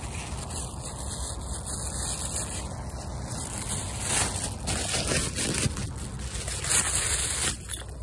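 Footsteps rustling through grass and dry fallen leaves, with rubbing and handling noise on the hand-held phone as it moves; a few louder scuffs about four, five and seven seconds in.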